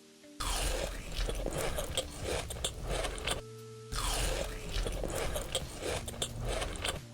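Close-miked crunchy chewing and biting, as in a mukbang: two stretches of crisp crunching, about three seconds each, split by a short pause just after halfway.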